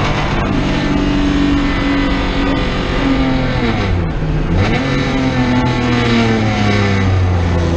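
Race car engine running hard at speed, heard from inside the cockpit over road and wind noise. About halfway through the revs drop sharply and climb straight back up, then hold steady again.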